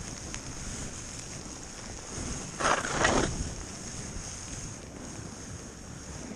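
Skis running through deep fresh powder, with wind rushing over the camera microphone as a steady noise and low rumble. A brief louder rush of noise comes about two and a half seconds in, lasting under a second.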